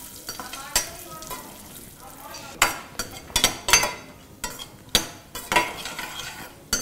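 Cashew pieces sizzling in hot ghee in a stainless-steel pan while a metal spatula stirs them, scraping and clicking against the pan. The knocks come more often and louder in the second half.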